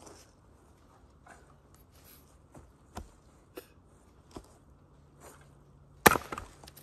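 Sharp knocks of a hand tool striking wood: a few light taps, then one loud strike near the end.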